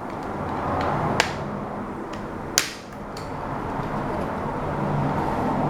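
Plastic laptop screen bezel being prised loose by hand: its clips snap free with sharp clicks, two loud ones about a second and two and a half seconds in. Plastic rubs and scrapes throughout as the bezel is worked off.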